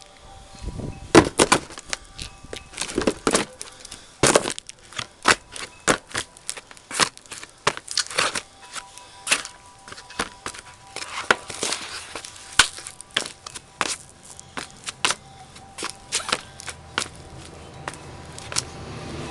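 Cardboard postal box being stomped and crushed under leather-soled wingtip dress shoes. The result is a long run of irregular crunches and sharp cracks, several a second, loudest in the first few seconds.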